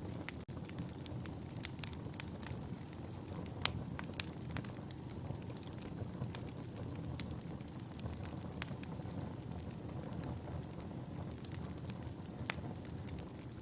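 Wood fire burning with a steady low rumble and scattered sharp crackles and pops, a few louder snaps among them.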